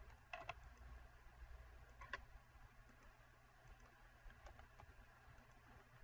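Faint computer mouse clicks against near silence: a quick pair of clicks just after the start, another pair about two seconds in, and a few fainter ones later.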